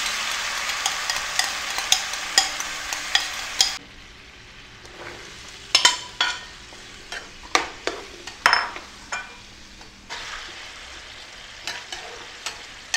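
Sauce poured into a hot frying pan sizzles loudly for nearly four seconds, then the sizzle drops away suddenly. Diced vegetables are then scraped into the pan off a plate with a metal spatula, with a run of sharp knocks and scrapes, and the pan goes on sizzling more quietly as they are stirred.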